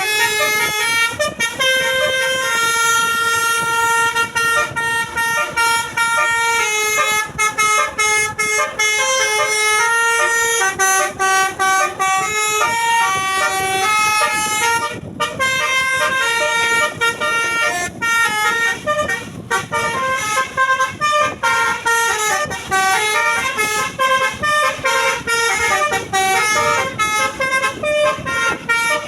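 Tour bus's multi-trumpet Basuri telolet horn playing a tune, sounding note after note in steady steps, with a brief break about halfway through.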